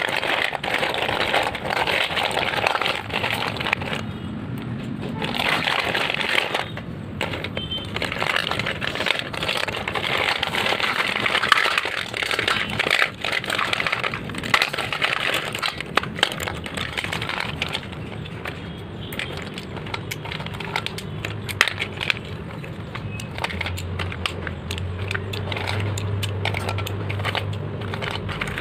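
A heap of broken slate pencils clattering as hands stir and scoop them, the sticks clicking against each other and against the stainless steel bowl. The clatter pauses briefly twice early on, then carries on.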